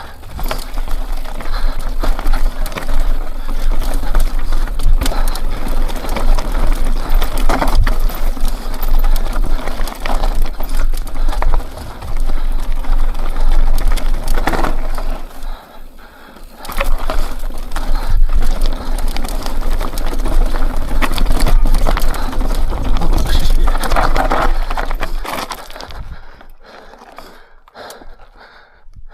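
Mountain bike clattering over rough rock, with tyres crunching, the chain and frame rattling with dense clicks and knocks, and a steady low rumble of wind on the microphone. It drops away sharply about 26 seconds in as the bike slows.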